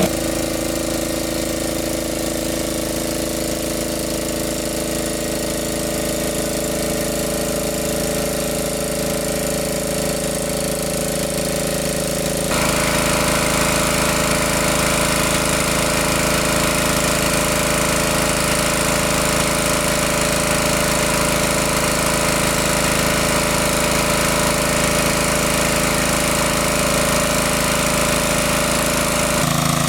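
Engine-driven water pump running steadily. About twelve seconds in the sound jumps abruptly a little louder and brighter, then runs steady again.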